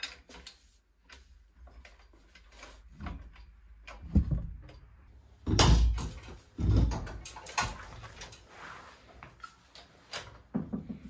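Irregular metal clunks and knocks, a few of them heavy and low, as an old V8 engine hanging from a chained engine hoist is worked loose and lifted out of the engine bay.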